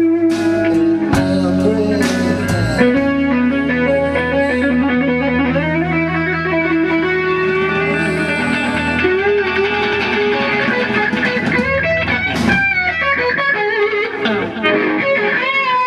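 Live band playing: electric guitar to the fore over electric bass and a drum kit.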